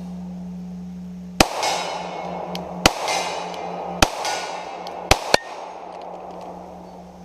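Five pistol shots from a Gen 3 Glock 30 in .45 ACP firing 185-grain rounds, the last two in quick succession. Each of the first three is followed a fraction of a second later by a softer sound of the bullet striking a steel silhouette target. A steady low hum runs underneath.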